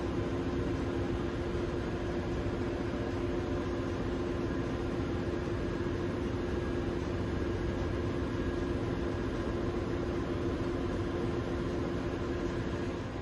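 Steady drone of running ship engine-room machinery, a continuous even noise with a low hum.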